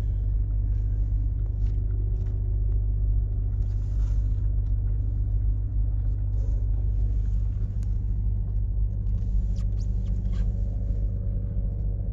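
A car's engine and road noise heard from inside the cabin: a steady low rumble, with a few faint ticks over it.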